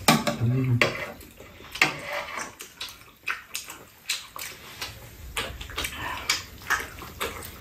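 Two people eating: wet chewing and lip-smacking on stir-fried rice cakes and fish cake, with irregular light clicks of chopsticks and a wooden spoon against the pan and bowls. A brief spoken word opens it.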